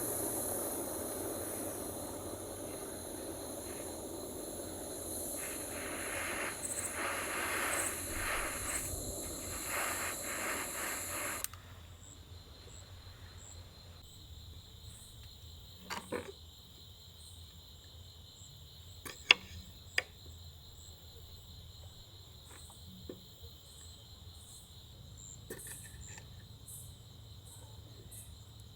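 Crickets and other insects chirring steadily. For the first part a loud, even hiss sits over them and cuts off suddenly. After that come a few sharp clicks.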